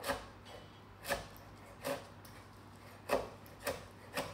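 Chef's knife chopping cavolo nero leaves on a wooden cutting board: about six separate knocks of the blade, unevenly spaced, roughly one a second.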